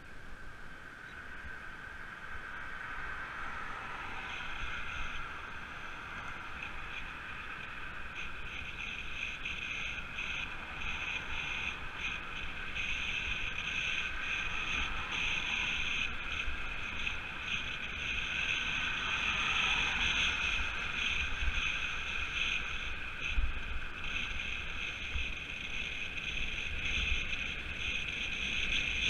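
Rolling noise of a road bike heard from a bike-mounted camera: a steady whirring hiss of tyres and drivetrain that grows louder over the first half, with wind buffeting the microphone underneath.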